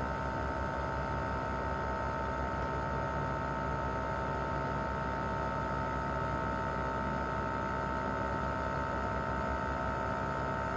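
Mitsubishi Heavy Industries SRC2221T inverter air conditioner outdoor unit running steadily in cooling mode: fan noise with a low hum and several held whining tones from its single-rotary compressor.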